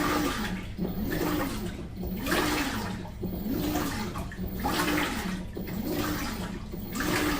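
Washing machine agitating a load: water sloshes in surges while the drive motor's hum rises and falls in pitch about once every second, as the wash action swings back and forth.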